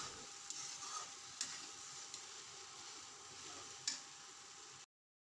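Chopped okra frying in a steel kadai: a faint, steady sizzle with a few light clicks of a steel spatula against the pan as it is stirred. Cuts off to silence near the end.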